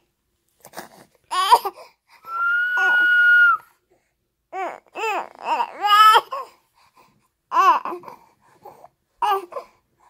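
Infant crying in short wails, set off by a single steady whistled note that holds about a second and a half, starting about two seconds in; the crying goes on in bursts after it.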